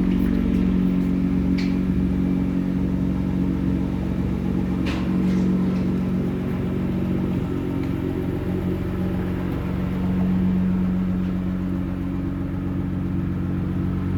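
Nissan GT-R's twin-turbo engine running steadily with a low, even hum, with two brief high chirps about two and five seconds in.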